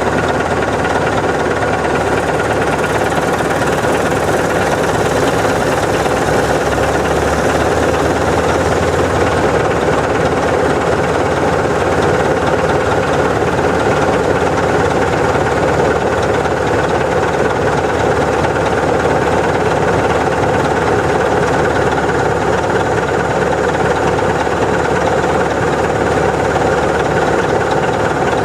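Heavy Caterpillar diesel earthmoving machinery running steadily under work, a continuous loud, rough engine sound with no pauses.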